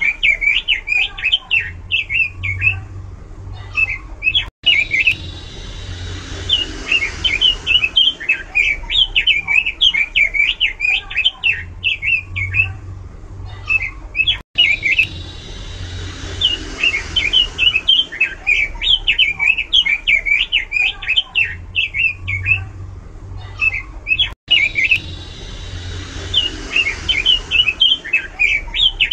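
Pekin robin (red-billed leiothrix) singing loud, rapid warbling song in long runs with short pauses. The same stretch of song comes round again about every ten seconds.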